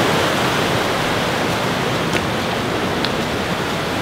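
Glacial meltwater stream rushing over rocks in white-water rapids, a steady even rush of water.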